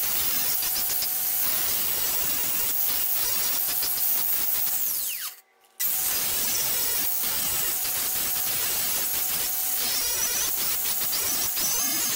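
Angle grinder running and grinding the cut edge of a steel exhaust pipe to clean it up for welding. About halfway through it winds down with a falling whine, stops for about half a second, then runs again.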